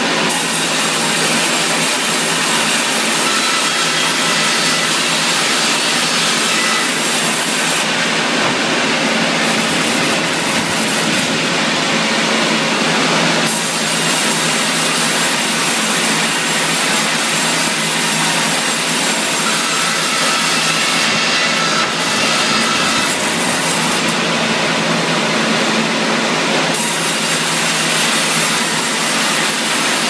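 Sawmill cutting a granadillo log: a steady, loud noise of the saw running through the hardwood. Its high hiss drops away briefly a few times.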